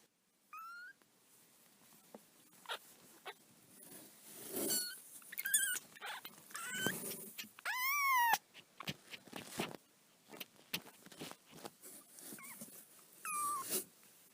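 Newborn kittens crying with thin, high-pitched mews. There are several short cries and one longer cry about eight seconds in that rises and falls, with soft rustling and small clicks between them.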